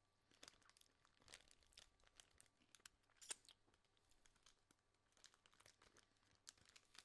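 Faint crinkling and crackling of a Wagon Wheel's plastic snack wrapper being handled in the hands: many small irregular crackles, with one sharper crackle about three seconds in.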